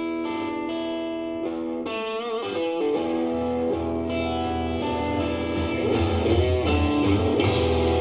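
Guitar-led music playing through a pair of Aiwa Orb wireless speakers. A bass line and drums come in about three seconds in.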